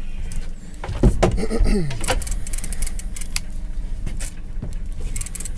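Boat engine idling with a steady low hum while a multiplier fishing reel is wound against a hooked fish, giving off small metallic clicks. About a second in, a short cry slides downward in pitch.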